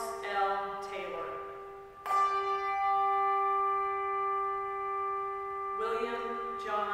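A handbell struck once about two seconds in and left ringing with a long, steady, clear tone, tolled in memory of a deceased church member as the names are read.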